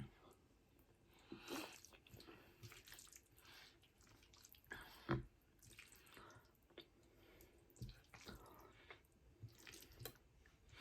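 Faint wet mouth sounds of someone eating: soft chewing, smacking and small slurps, with a short soft knock about five seconds in.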